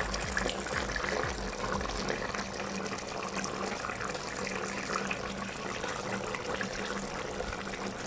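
Chicken curry sauce bubbling steadily in the pot as it simmers uncovered to reduce its liquid, with a dense run of small pops.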